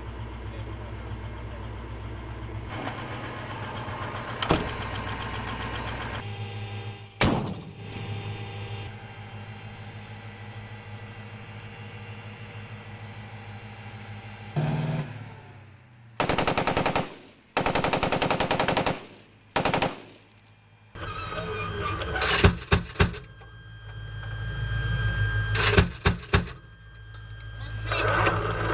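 A Bradley Fighting Vehicle idling, with a few clicks, then its turret's 25 mm chain gun firing three short bursts of rapid shots about halfway through. After the bursts comes a steady whine of turret equipment with loud, sharp metallic clanks.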